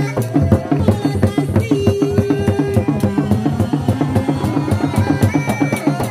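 Sundanese reak music: dogdog drums beating a fast, dense rhythm, with a melodic line held and gliding over the drumming.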